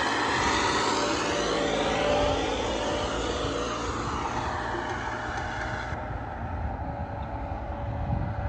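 Turbocharged diesel tractor engine running steadily under load while pulling a disc harrow through soil. About six seconds in the hiss in the higher tones drops away.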